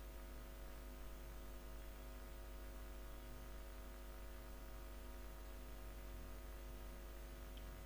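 Faint, steady electrical hum with a little hiss: room tone.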